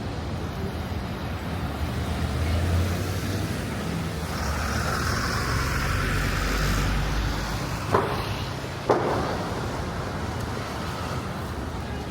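City street traffic noise: a steady low rumble, with a vehicle passing in the middle, and two sharp knocks about a second apart after that.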